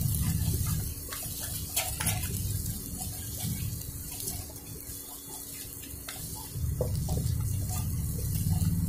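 A spatula stirring and scraping thick sweet corn halwa around a kadhai, with scattered light clicks of the spatula on the pan over a hissing sizzle from the ghee. The sound eases about a second in and picks up again near the end.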